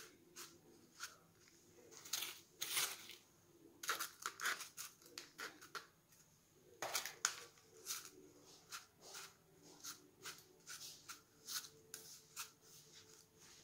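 Perlite granules crunching and rustling in a thin plastic cup as a geranium cutting is pushed in and the perlite is pressed and poked around its stem. It comes as an irregular run of short, faint scratchy crunches.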